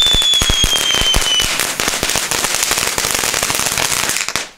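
Small youth-firework spitters burning: a dense, irregular crackle of sharp pops over the hiss of spraying sparks. A steady whistle slowly drops in pitch and stops about a second and a half in. The sound cuts off abruptly just before the end.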